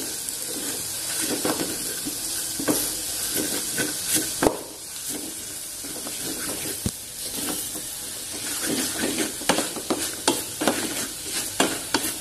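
Wooden spatula stirring and scraping sautéed button mushrooms and flour around a metal pot, with irregular scrapes and knocks over a steady sizzle. The flour is frying in the pot to cook out its raw taste.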